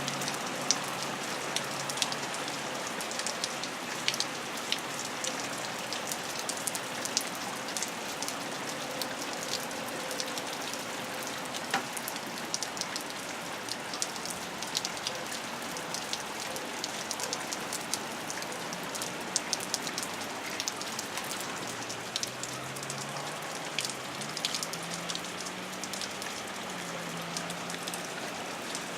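Steady rain falling, an even hiss dotted with many sharp drop strikes and drips.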